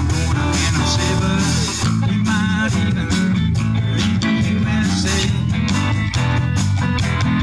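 Band playing a blues-rock song: guitar over bass and a steady drum beat.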